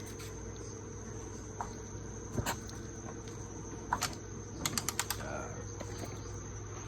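Crickets chirping steadily in the background over a low hum. A few sharp clicks cut in around the middle, including a quick run of four just after halfway.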